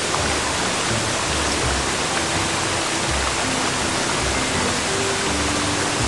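Steady rushing of a small rainforest creek spilling over rocks, with soft background music of held notes playing over it.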